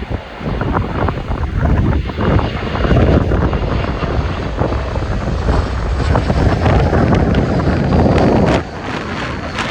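Airbus A220-300's Pratt & Whitney PW1500G geared turbofans passing overhead on landing approach: a loud jet rumble with a faint high whine, dropping away abruptly near the end.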